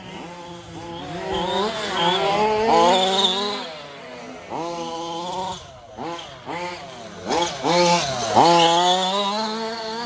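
1/5-scale RC racing trucks' small two-stroke petrol engines revving up and down under throttle, the pitch climbing and dropping again and again as several trucks race. The loudest swell comes about eight seconds in, ending in a quick drop in pitch.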